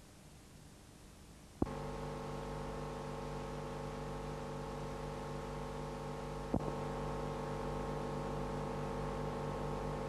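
Steady electrical mains hum with a buzzy stack of overtones on an old videotape soundtrack, under a colour-bar test pattern. Faint hiss gives way to the hum with a click about one and a half seconds in, and there is a second click about six and a half seconds in.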